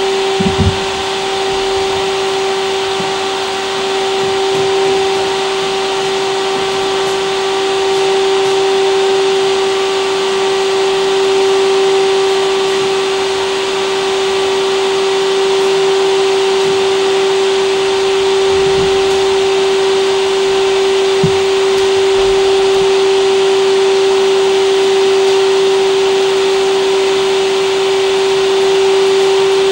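Loud, steady electric drone: one unchanging pitched hum with a higher overtone over a continuous hiss. A few soft low thumps sound about half a second in and again around twenty seconds.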